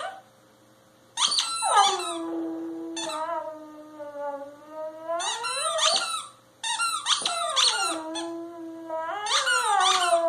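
Cairn Terrier chewing a squeaky plush toy and howling along with it: bursts of sharp squeaks from the toy alternate with two long, wavering howls, each held several seconds. The howling is a playful, excited "singing" set off by the squeaker, not distress.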